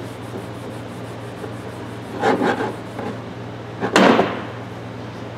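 A rag rubbing over a hammer's rubber grip, then a single sharp knock about four seconds in as the steel hammer is laid down on the workbench.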